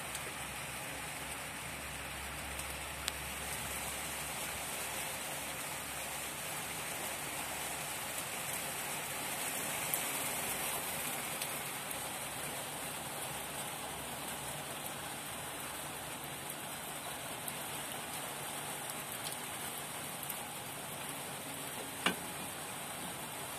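Steady rain falling on a mat of steel rebar laid out for a concrete slab and on the wet ground beneath it, a little heavier about ten seconds in. A single sharp click sounds near the end.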